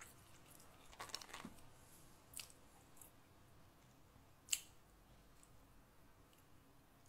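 Near silence: faint room tone with a few small rustles and clicks close to the microphone, a short cluster about a second in and one sharper click about four and a half seconds in.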